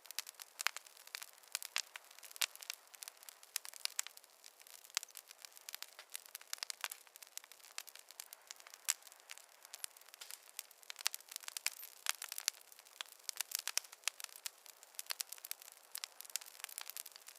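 Wood fire crackling in a fireplace: irregular sharp snaps and pops, several a second, over a faint hiss.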